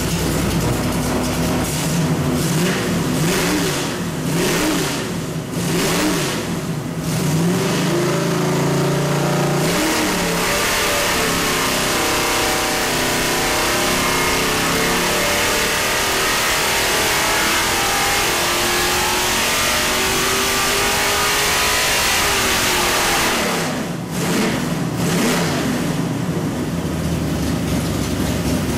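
647-horsepower 434 cubic-inch small-block Chevy V8 on an engine dyno: revved in several short blips, held briefly at a steady speed, then a full pull with the revs climbing steadily for about thirteen seconds. Near the end it cuts back abruptly and the revs fall away to a low idle.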